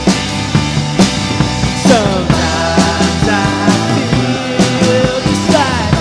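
Rock song with a full band and a steady drum beat, with sliding notes about two seconds in and again near the end.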